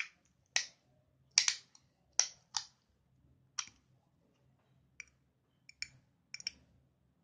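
Small plastic toy spinning tops and their launcher giving a string of sharp plastic clicks and clacks as they are wound up, launched and set down, the loudest in the first few seconds and fainter ones near the end.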